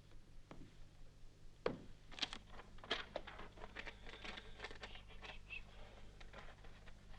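Quiet handling noises: a run of small sharp clicks and rustles, starting about a second and a half in, over a faint steady low hum.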